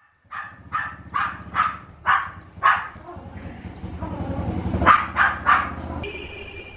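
A dog barking repeatedly in two runs of quick barks, over a low steady rumble.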